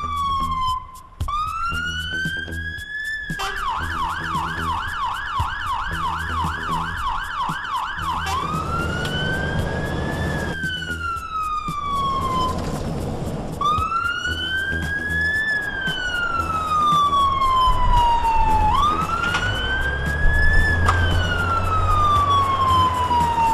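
Fire engine siren sounding on an emergency run. It goes in a slow rising and falling wail, switches to a fast yelp of about two to three sweeps a second for some five seconds, then returns to the wail. The truck's diesel engine rumbles low beneath it.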